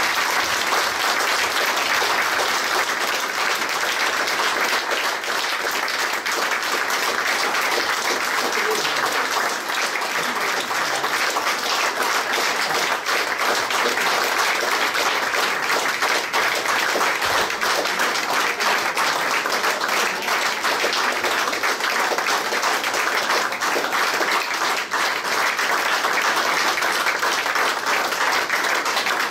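A roomful of people applauding: sustained, even clapping that keeps going at one level throughout.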